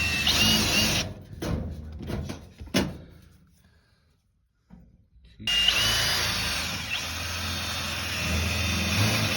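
Power drill running, drilling holes for rivets: a short whine at the start, a few sharp clicks, a pause, then a longer run from about halfway.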